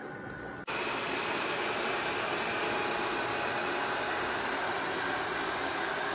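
The Ecovacs Deebot T50 Omni docking station's self-emptying suction running, a loud, steady rush of air as it pulls dust out of the robot's dustbin. It starts abruptly less than a second in.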